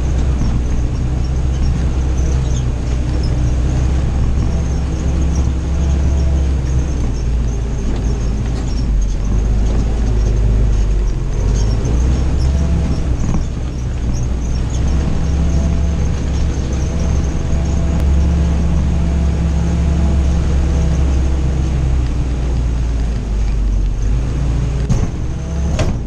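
Willys CJ-2A jeep's four-cylinder flathead engine running as the jeep drives, its pitch rising and falling with the throttle, with a short drop in level about halfway through.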